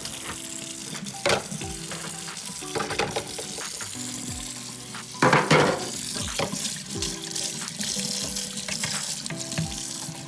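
Tap water running into a sink while salt is rinsed off 3D-printed plastic robot chassis parts, with louder splashes about a second in and again about five seconds in. Background music with held notes plays throughout.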